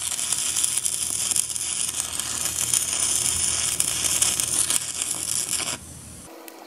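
Stick-welding arc crackling steadily as weld is burned into the worn splines of a hydraulic pump's input shaft. It cuts off abruptly near the end as the rod is pulled away.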